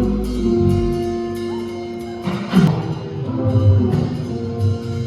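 Background music with drums and held instrumental notes.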